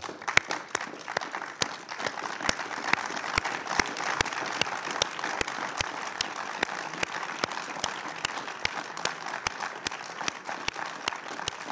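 Applause from a roomful of people clapping steadily, with sharp, close individual claps standing out above the dense clapping of the crowd.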